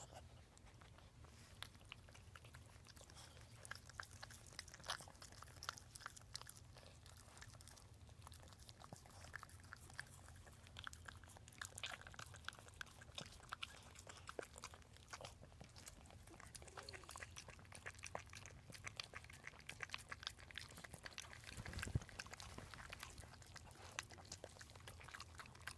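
Dachshund licking and nibbling a newborn puppy clean after birth: faint, irregular wet clicks and smacks of the dog's mouth and tongue, over a steady low hum.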